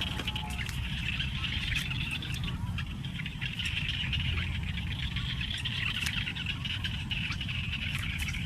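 Steady high chirring of insects over a low rumble, with scattered small clicks.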